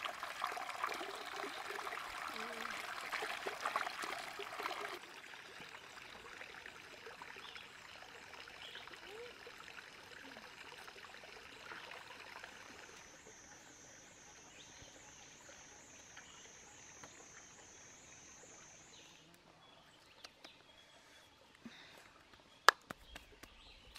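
Stream water running and splashing over rocks for the first five seconds as the papaya is rinsed in it, then a quieter stream in the background. Midway a high chirping repeats about three times a second for several seconds. Near the end come scattered clicks and one sharp loud knock.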